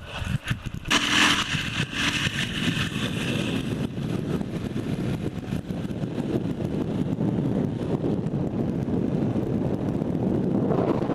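Dnepr sidecar motorcycle's flat-twin engine running steadily while the rig is ridden, with a hiss over it during the first few seconds.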